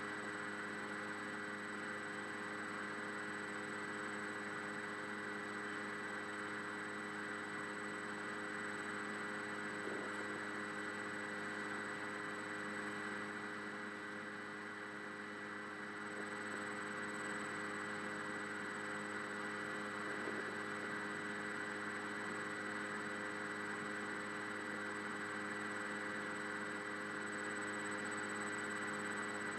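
Steady electrical hum and hiss of a telephone line while the caller is on hold, with no hold music; a few constant faint tones sit in the noise and barely change.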